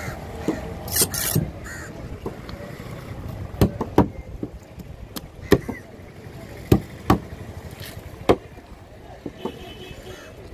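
A large curved fish knife knocking sharply against a wooden cutting board as it chops into a trevally, a string of irregular strikes from a few seconds in. Crows caw in the background.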